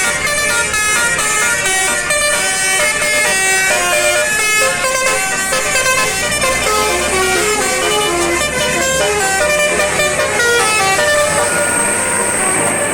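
Indonesian 'telolet' bus horns, multi-tone air horns played as a fast melody of short notes stepping up and down without a break. A thin, high, steady tone joins in near the end.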